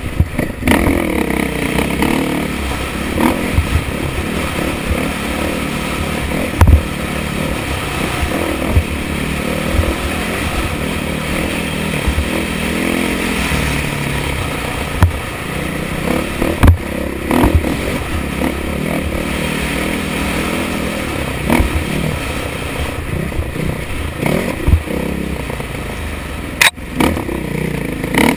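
2013 KTM 500 EXC's single-cylinder four-stroke engine running under way on a dirt trail, its pitch rising and falling with the throttle. Sharp knocks and clatter from the bike going over rough ground come through now and then.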